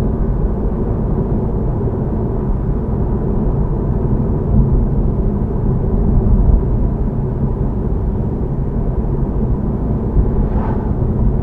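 Steady low rumble of road and engine noise from a car being driven, heard from inside the cabin.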